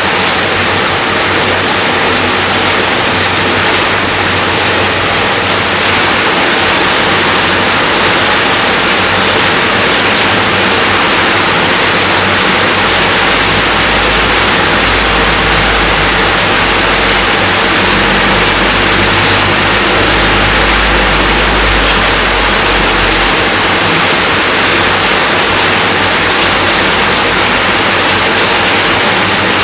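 Steady rainfall, an even hiss, with a deep low rumble underneath for about ten seconds in the middle.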